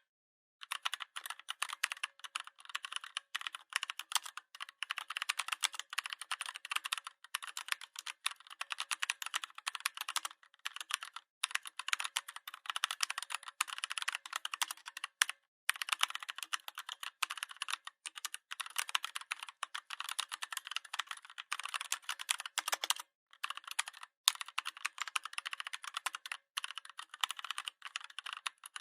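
Continuous typing on a computer keyboard: rapid, crisp key clicks in long runs, broken now and then by short pauses.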